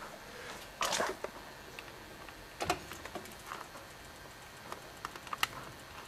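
Scattered faint clicks and ticks, a second or so apart, from a brown glass bottle that has been heated to a glow in a microwave by a paperclip inside it: the hot, melted glass crackling as it begins to cool.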